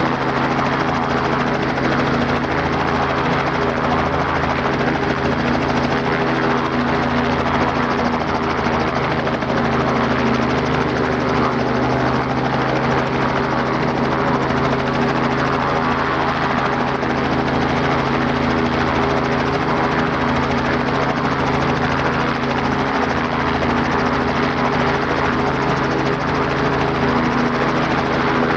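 Robinson R44 helicopter running steadily on the ground: the piston engine and main and tail rotors turning at an even speed, with a constant, unchanging drone.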